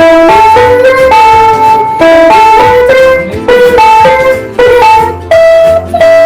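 A simple melody played on a keyboard instrument, one note after another, each held for about half a second to a second.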